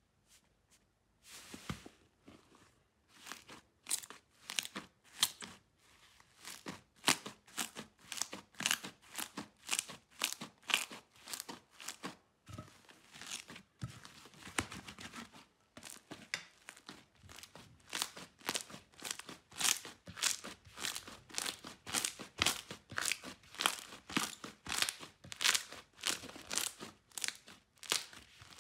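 Hands pressing, stretching and squeezing soft slime: a steady run of short sticky crackles and tearing pops, about two a second, as the slime pulls apart and squishes.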